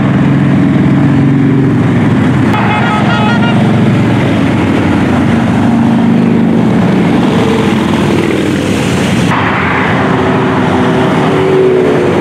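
A procession of heavy cruiser and touring motorcycles, including a trike, riding past one after another at highway speed, engines running steadily. A brief run of short, rapidly repeating high beeps sounds about three seconds in.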